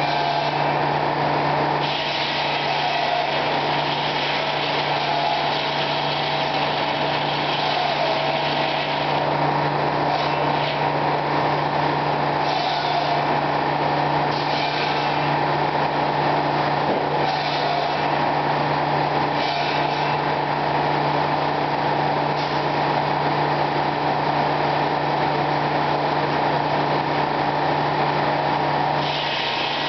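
Circular sawmill machinery running steadily: a loud, constant low hum with a higher steady tone over it, and stretches of brighter hiss that come and go several times.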